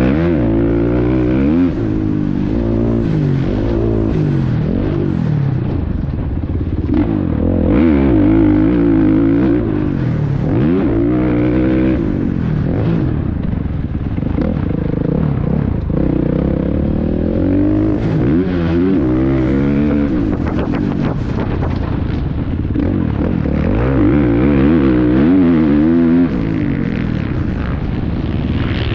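KTM 300 SX two-stroke motocross bike's engine, heard from onboard, revving up and dropping back again and again as the rider accelerates out of corners, shifts and rolls off into the next turn.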